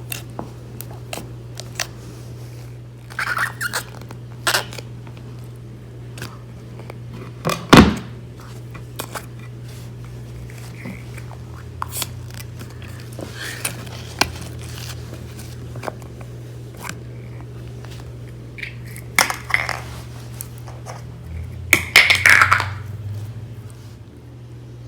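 Slime being handled and squeezed: scattered clicks, pops and short squelches, with a louder thump about eight seconds in and a run of squelches near the end, over a steady low hum.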